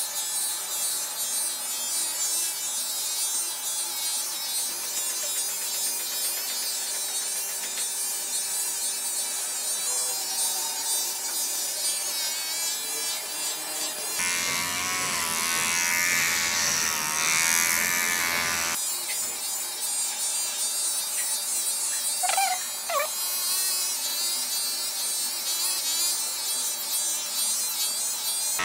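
Electric hair clippers buzzing steadily while cutting short hair on the back and sides of the head. The buzz grows fuller and a little louder for a few seconds about halfway through.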